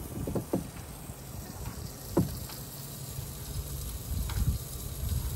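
Water sloshing over a low rumble, with a few short plops, the clearest about two seconds in.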